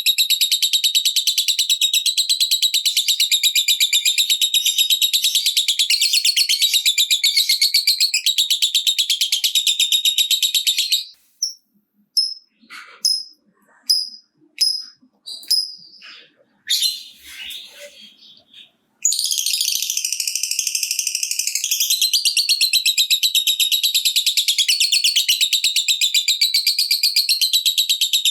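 Lovebird's long ngekek chatter: a loud, very fast unbroken run of high chirps like rapid typing. It breaks off about eleven seconds in for several seconds of separate single chirps and calls, then resumes near the nineteen-second mark.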